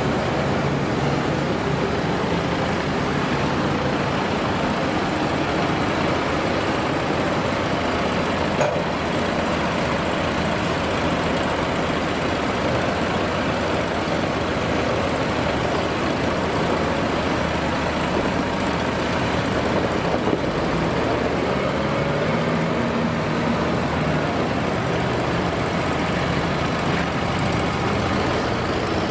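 Engine idling steadily, a low even running sound with a slight shift in pitch about twenty seconds in.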